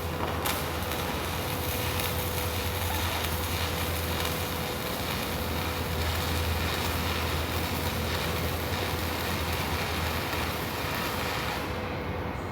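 Electric arc welding: a steady crackling hiss that starts abruptly and stops sharply near the end, after about twelve seconds of welding, over a constant low hum.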